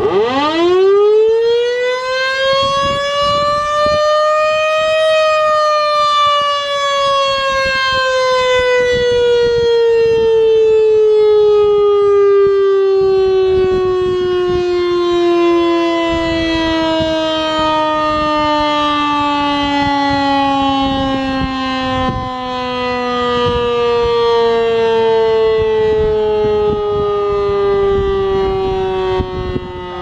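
Federal Electric Fedelcode Model 1 electromechanical warning siren sounding a short blast: it winds up fast to its highest pitch within about five seconds, then winds down slowly, its wail falling steadily in pitch as the rotor coasts.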